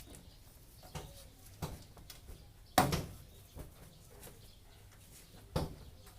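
Several scattered knocks and clunks, the loudest about three seconds in, over a faint low hum.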